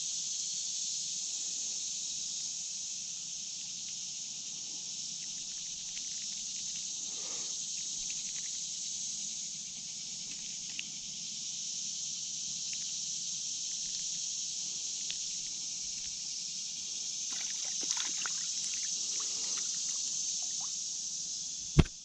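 Steady hiss of creek water running. Light rustling comes in the last few seconds, and a single sharp knock sounds just before the end.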